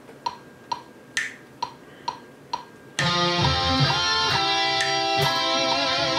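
A DAW metronome count-in ticking about twice a second, every fourth click accented; about halfway through, a loud metal track with distorted electric guitars starts abruptly.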